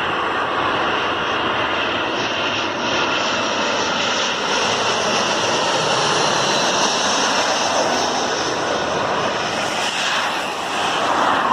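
Airbus A320's turbofan engines running with a loud, steady rushing noise that holds throughout, with a brief dip and swell near the end.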